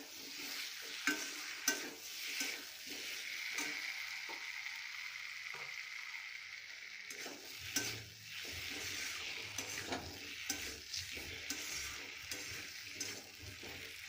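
Potato and tomato masala sizzling in oil in a metal kadai while a steel spatula stirs it, with irregular scrapes and clicks of the spatula against the pan. The masala is being fried down after salt has been added.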